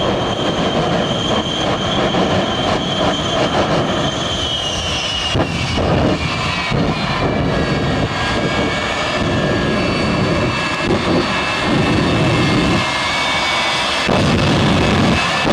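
Shockwave jet truck's three jet engines running at full thrust: a loud, steady rush with a high whine that falls in pitch a few seconds in.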